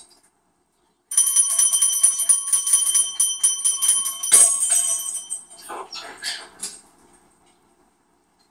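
A small bell jingling, shaken rapidly with a steady metallic ring for about four seconds, then a few softer rattles.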